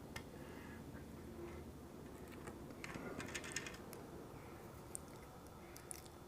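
Faint light clicking of small plastic parts and screws being handled during the RC kit build, with a quick cluster of clicks about halfway through and a few single clicks near the end.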